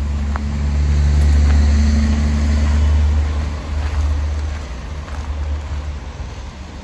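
A nearby road vehicle's engine running, a low steady hum that is loudest early and fades away after about three and a half seconds.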